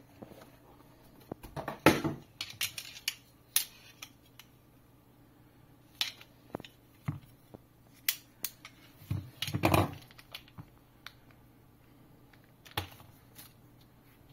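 Handling noise from jump-starter accessories: plastic and metal clicks, knocks and rattles as the battery clamps, their cable and the air hose are picked up and moved about on a desk mat. There is a louder clatter about two seconds in and another near ten seconds.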